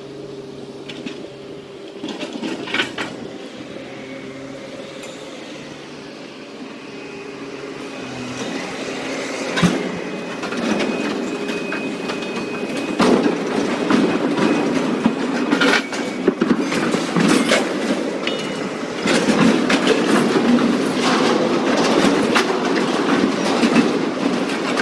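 BC Rail freight boxcars rolling and clattering over the rails as the train derails. The noise grows louder from about eight seconds in, with repeated sharp metal clanks and bangs.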